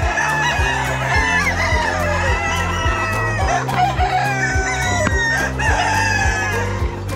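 A flock of free-range chickens calling, with roosters crowing and hens clucking, over background music with a steady beat.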